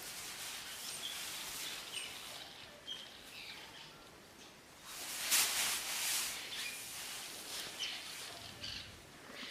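Scattered short bird chirps, with a louder rushing noise about five seconds in that lasts a second or so.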